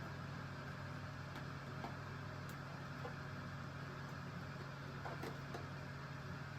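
Steady low background hum with a few faint, light clicks of small plastic parts being handled as wiring connectors and clips are fitted.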